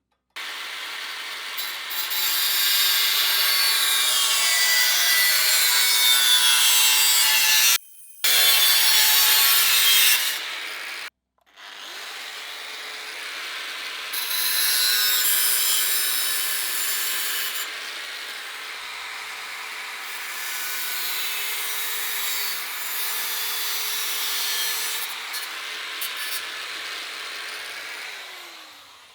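Handheld rotary power tool working sheet steel, a steady high grinding and scraping with a motor hum, cut off abruptly twice and winding down with a falling pitch near the end.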